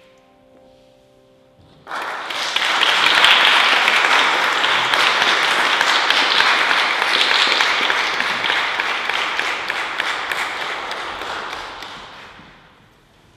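The piano's last chord rings and dies away, then an audience breaks into applause about two seconds in, which fades out near the end.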